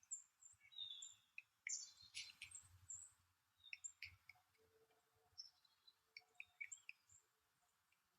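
Faint bird chirps and calls: many short, high notes at irregular intervals, with several birds calling.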